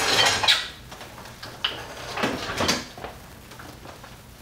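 Dishes and utensils being handled on a kitchen counter: a burst of clatter and rustling at the start, then a few light knocks and clinks.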